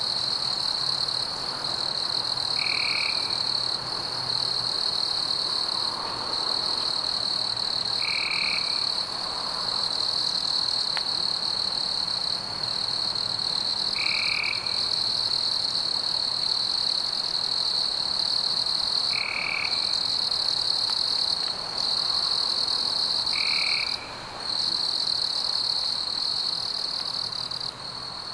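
A steady, high-pitched trilling chorus of calling animals, broken now and then by brief pauses, with a short lower call repeating about every five seconds.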